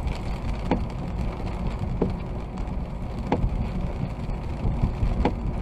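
Car driving on a wet road in rain, heard from inside the cabin: a steady low rumble of road and engine noise under the hiss of rain, with a short knock every second or two, four in all.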